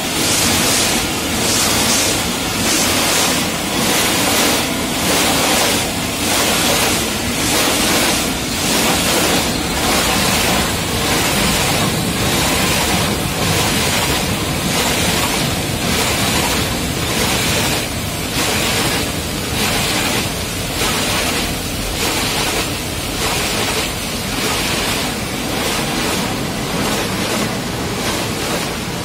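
Automatic tunnel car wash heard from inside the car: a steady rush of water spray with spinning brushes scrubbing over the body, giving a loud swishing pulse a little more than once a second.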